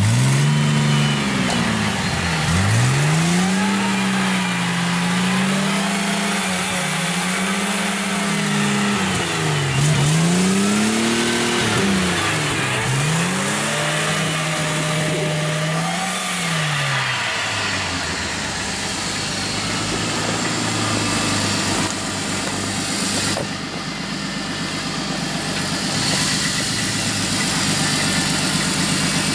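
Off-road vehicle's engine revving up and down over and over, rising and falling about every two seconds, then settling about two-thirds of the way through into steadier, lower running.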